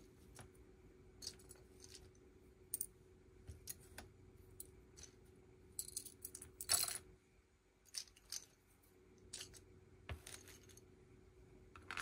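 Small plastic Lego pieces clicking and rattling as they are handled, with irregular light clicks throughout. A longer rattle of pieces comes about seven seconds in, and a shorter one about ten seconds in.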